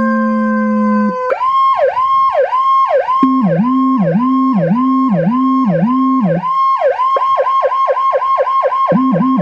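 Turkish ambulance siren sound effect. A steady tone slowly drops in pitch, then about a second in it switches to a repeating swoop that falls and rises a little under twice a second. About seven seconds in it speeds up to a fast yelp of about four cycles a second. A second, lower siren tone cycles along with it through the middle stretch and again near the end.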